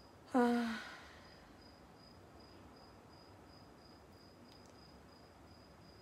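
A cricket chirping, a thin high pulse repeating about two to three times a second. About half a second in, a woman gives a brief low hum.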